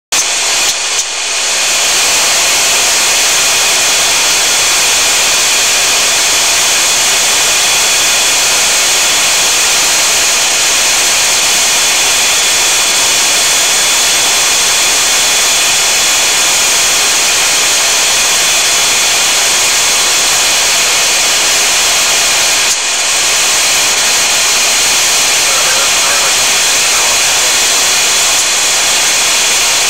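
Transall C-160's turboprop engines and propellers running steadily, heard inside the cockpit: a loud, even drone with a high whine. It dips briefly about three-quarters of the way through.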